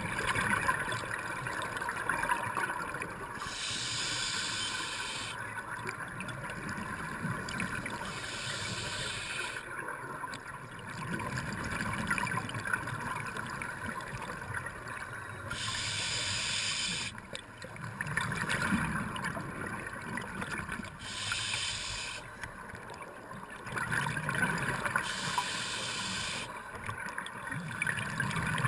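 Scuba regulator breathing heard underwater: five hissing inhales a few seconds apart, each followed by the bubbling gurgle of exhaled air.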